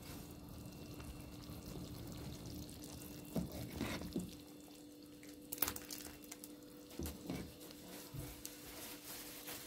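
A metal ladle stirring and lifting shredded chicken out of a stainless-steel pot of arabaşı chicken soup: soft liquid splashing and dripping back into the pot, with a few light clinks of the ladle on the pot, over a steady faint hum.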